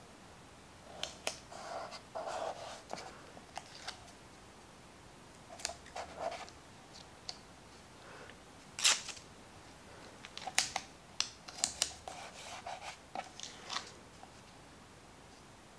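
Small handling sounds of paper crafting: strips of painter's tape torn and pressed down to hold a thin metal cutting die on cardstock, with paper shifting and light clicks and scrapes. The sounds come as scattered short clicks and rustles, the sharpest about nine seconds in, then a quick run of them from about ten to fourteen seconds.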